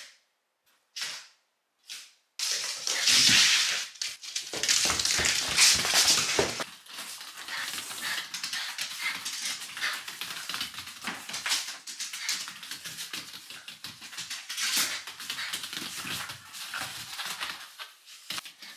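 Mame-shiba whining and yipping excitedly in greeting, with the rustle of fur and clothing as it is petted. A few short sounds come in the first two seconds, then the sound is continuous, loudest for a few seconds early on.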